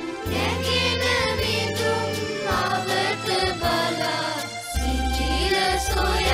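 Children's choir singing a Sinhala song in unison, with instrumental backing and a steady bass line; the bass drops out briefly in the middle and comes back.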